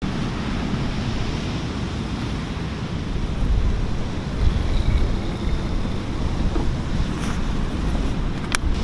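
Ocean surf and wind noise on the microphone, a steady rush heaviest in the low end. A couple of short, sharp clicks come near the end.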